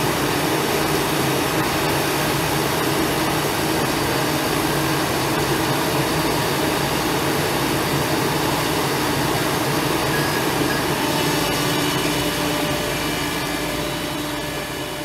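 Diesel engines of heavy track-renewal machinery, a road-rail excavator and mobile cranes, running steadily: a constant engine drone under a broad rushing noise. It eases off gradually near the end.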